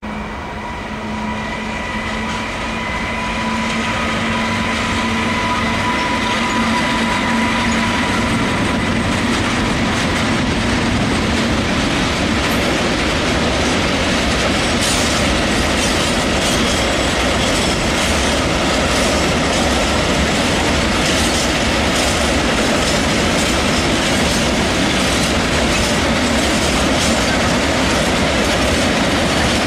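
Mixed freight train of flat, tank and open wagons rolling past behind an electric locomotive, with the locomotive's steady whine of several tones fading out after about eight seconds. After that comes the continuous rolling noise of the wagon wheels, with quick clicks as they cross the rail joints.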